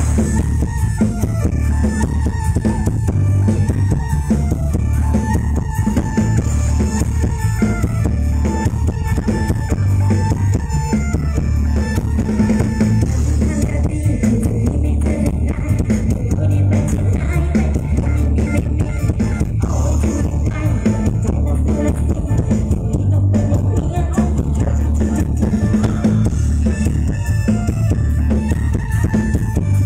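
Live mor lam band music played loud through a big outdoor concert sound system, with a heavy pulsing bass and a drum kit, recorded on a phone from among the audience.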